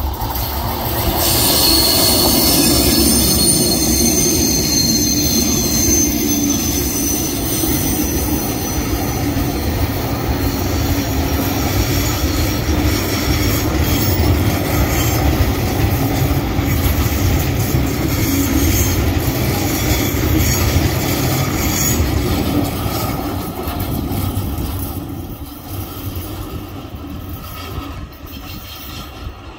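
Freight train led by two Tasrail TR class diesel-electric locomotives passing close by on a curve, then loaded log wagons rolling past with a steady heavy rumble of wheels on rail. A high-pitched wheel squeal starts about a second in and dies away after about ten seconds. The rumble fades near the end as the train moves off.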